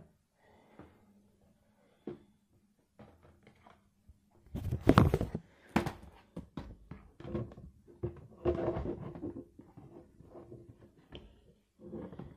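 Handling noise from a camera held close to a boxed disc set: irregular thumps, knocks and rubbing. The loudest thump comes about five seconds in.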